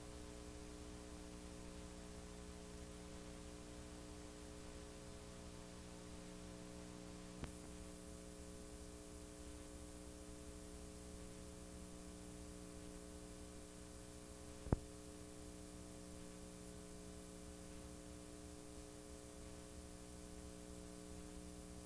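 Faint, steady electrical mains hum with a buzz of overtones and light hiss from the playback of a videotape's blank end. There is a small click about seven seconds in, after which the hiss gets brighter, and a sharper, louder click about fifteen seconds in.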